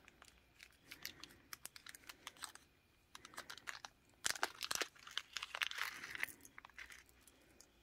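Small plastic zip-top bag crinkling and crackling as it is handled and opened, in short faint bursts that grow busier about four seconds in.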